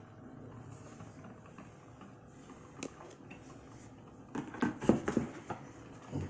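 A faint steady background, a single click near the three-second mark, then a burst of knocks and clatter of hard objects being handled about four seconds in.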